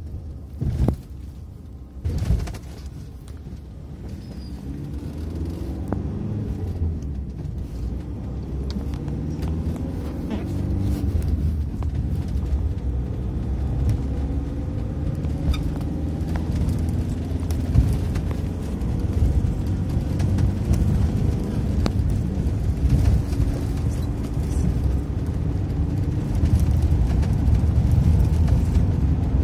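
Bus engine and road rumble heard from inside the passenger cabin while driving, growing louder over the first several seconds as the bus picks up speed. Two sharp thumps in the first couple of seconds.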